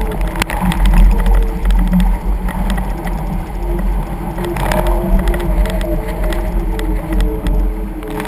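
Wind buffeting the deck-mounted camera's microphone while water rushes and spray hits the hull of a VX One sportsboat reaching fast through waves. Many short sharp hits break through a deep rumble, and a wavering hum of several pitches runs underneath.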